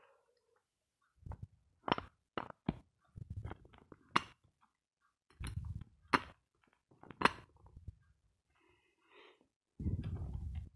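Lumps of dry edible chalk being handled in a glass bowl: about half a dozen sharp clicks and knocks of chalk against glass and against other lumps, with low dull thumps of handling between them and a longer one near the end.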